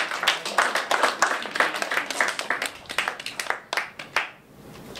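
Small audience applauding, a patter of hand claps that dies away about four seconds in.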